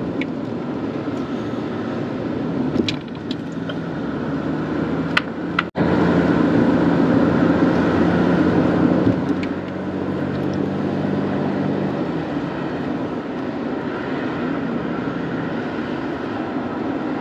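Mercedes-Benz W124 driving, its engine and tyre noise heard from inside the cabin as a steady hum over road rush. The engine note changes about twelve seconds in, and the sound breaks off for an instant a little before six seconds in.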